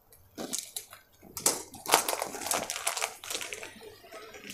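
Packaging crinkling and rustling as an Epson 001 yellow ink bottle is taken out, with scattered clicks and scrapes, busiest in the middle.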